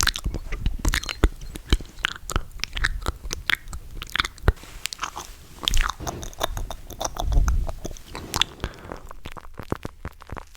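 Wet ASMR mouth sounds made right up against the microphone: a rapid, irregular run of clicks, smacks and tongue pops.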